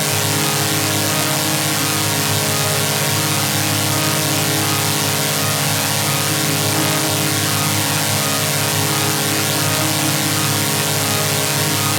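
A vocoder effect in a major chord: a loud, buzzing electronic drone of many pitches held at once, with no change.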